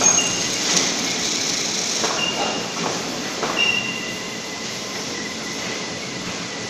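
Portable CNC plasma cutter's torch hissing steadily as it cuts sheet metal, with a few short high beeps and a faint high whine.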